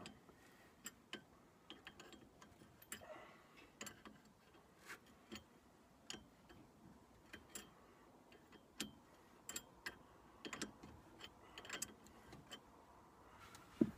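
Faint, irregular clicks of a wrench working the top bolt of a sway bar link as it is tightened, several a second at times.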